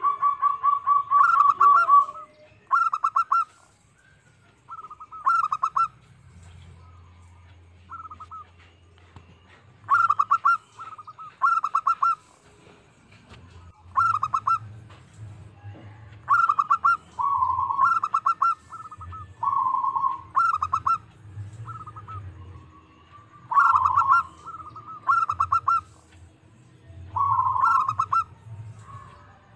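Zebra dove (perkutut) singing: phrases of rapid staccato coos every second or two, several ending in a lower held coo, with short pauses between.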